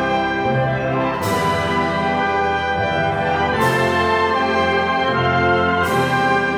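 Full symphonic wind band playing a sustained, loud passage with the brass prominent. A bright crash, likely a cymbal, marks the music about every two and a half seconds, three times.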